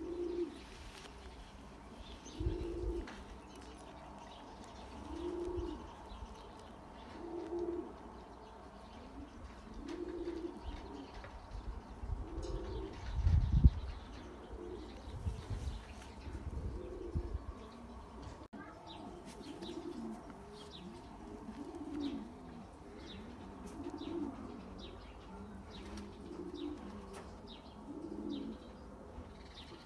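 Racing pigeons cooing: low repeated coos every couple of seconds, coming closer together in the second half. A few low rumbling thumps, the loudest about halfway through.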